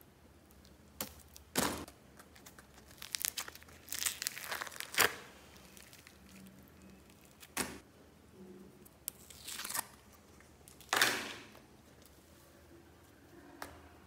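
Old slime being squeezed and peeled out of thin plastic tubs, stretched and dropped into a bag-lined basket: the tubs crinkle and the slime tears and squelches in a handful of separate bursts with short quiet gaps between.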